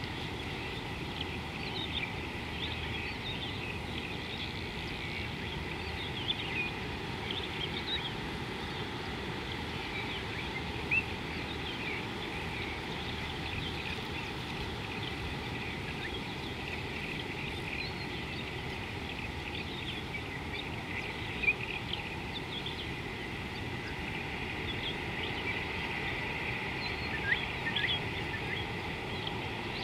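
Many small wild birds chirping and calling in short, quick notes over a steady background hiss, with a faint steady high tone under them. A couple of short sharp knocks stand out, about a third and two-thirds of the way through.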